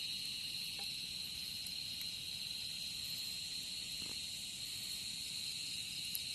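Steady, high-pitched evening insect chorus, unbroken throughout.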